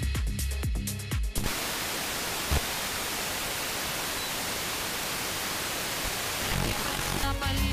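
Wideband FM radio receiver (an RTL-SDR demodulating in SDR#). Music with a beat plays from a station for about a second and a half, then cuts off into a loud, even hiss of FM static as the tuning moves onto empty frequencies. A click comes about a second later, and a short snatch of a signal breaks through the hiss near the end.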